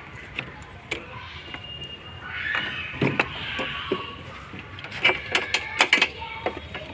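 Scattered sharp knocks and clicks of plastic and metal, with a scraping rustle from about two to four seconds in and a quick run of knocks between five and six seconds. They come from the plastic bumper cover and hand tools being handled at the front of a car during bumper removal.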